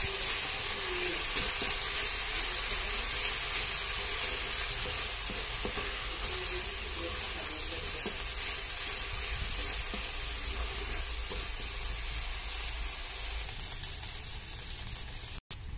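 Ground paste sizzling in hot oil in a black wok, steady throughout, with a spatula stirring and scraping through it. The sound cuts out for a moment near the end.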